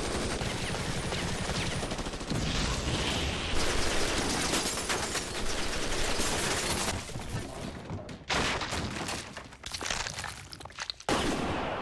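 Sustained volley of automatic gunfire from several guns at once, an anime's gunshot sound effects. The firing breaks off briefly about eight seconds in and again near eleven, then cuts off suddenly.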